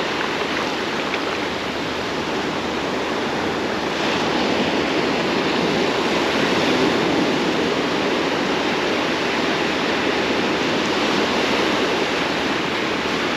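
Ocean surf breaking and washing onto the beach: a steady rushing noise that swells a little a few seconds in.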